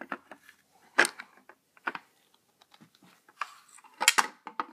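Hard plastic monitor-stand parts being handled and fitted together, making sharp clicks and knocks. The loudest comes about a second in and a quick cluster follows near the end.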